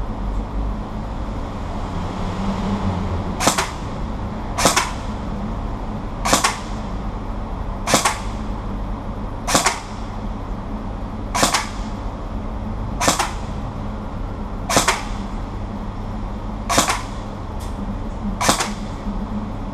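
Krytac KRISS Vector airsoft electric gun (AEG) firing single shots, about ten sharp cracks spaced roughly one and a half to two seconds apart, beginning a few seconds in.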